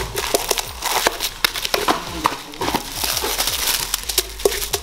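Clear plastic wrapping crinkling and crackling as hands fold it tightly around a bundle of three firecracker tubes, in quick, irregular rustles.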